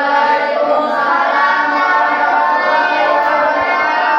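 A class of children singing together in unison, one continuous sung line lasting about five seconds.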